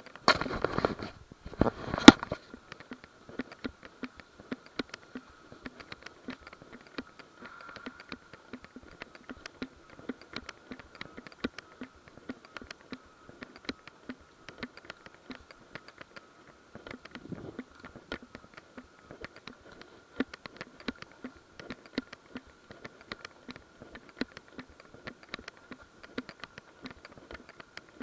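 Footsteps crunching through dry leaves and undergrowth, a quick irregular run of clicks and crackles, with a loud rustling thump about two seconds in. A faint steady high tone sits underneath.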